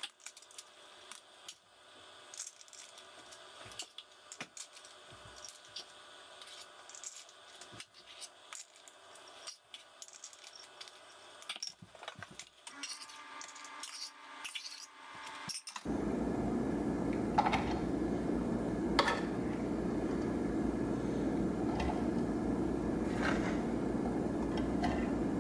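Light clatter of a scoop scraping and tapping against plastic meal-prep containers as cooked rice is portioned out: small scattered clicks and knocks. About two-thirds of the way through, a louder steady hum takes over, with a few sharp clicks.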